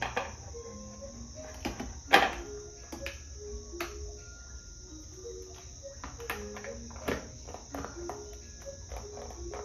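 Steady high-pitched chirring of crickets, with scattered sharp clicks and knocks, the loudest about two seconds in.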